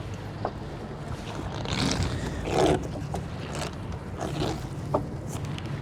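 Boat engine running with a steady low hum, with a few short scrapes and knocks on the boat and a brief louder rush about halfway through.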